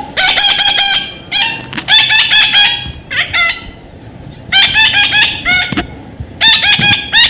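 Parrot calling in rapid runs of short, harsh, repeated notes, several a second, broken by brief pauses.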